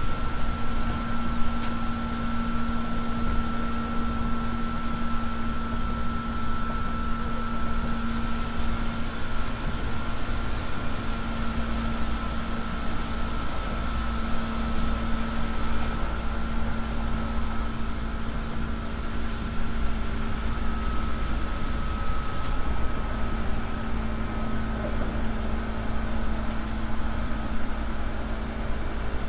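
Seibu 301 series resistance-controlled electric train running, heard inside motor car MoHa 301-10: a steady high whine over a constant wheel-on-rail rumble.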